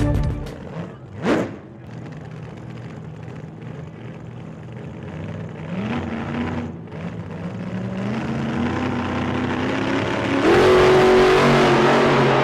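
Car engine revving, its pitch climbing in steps over several seconds and getting louder toward the end, after a brief sharp rising sweep about a second in.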